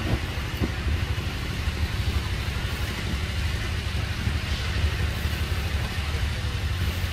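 Steady low rumble with a hiss over it, even throughout.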